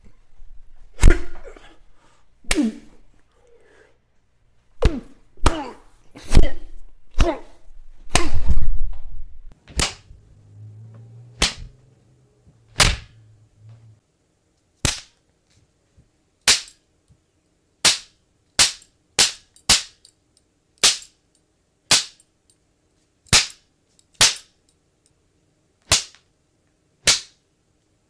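A string of separate fight punch sound effects, one after another: about twenty sharp whacks and slap-like cracks, most a second or so apart. A heavier, longer hit comes about eight seconds in, and the later hits are short and crisp.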